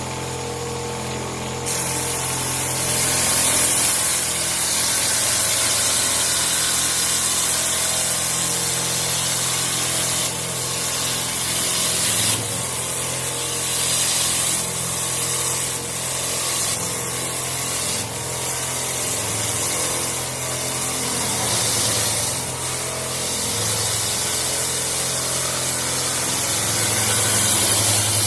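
CNC wood lathe running with a steady motor hum, its cutter shaving the spinning wooden blank with a loud continuous hiss that starts about two seconds in.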